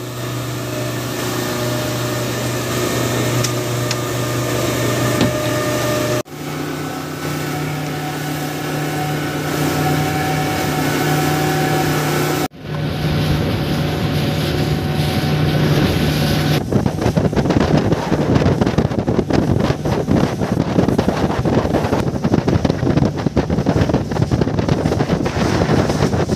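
Outboard motor of a small fishing boat running steadily under way, with water rushing past. About two-thirds of the way through the engine drops out and wind buffeting the microphone over choppy sea takes over.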